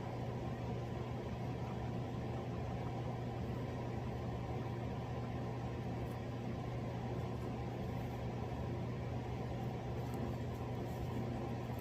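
Steady low machine hum with an even background hiss, unchanging throughout, with a few faint ticks near the end.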